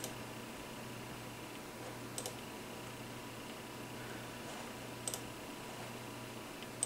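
Computer mouse buttons clicking: four short, sharp clicks, each a quick double tick, about two seconds apart, over a faint steady hum.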